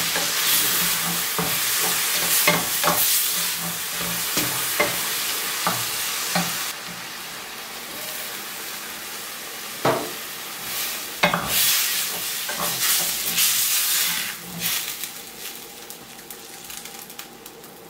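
Minced meat and watery tomato sauce sizzling in a stainless steel frying pan while a wooden spatula stirs and scrapes it, with short knocks from the strokes. The sizzle drops suddenly about seven seconds in and fades further near the end.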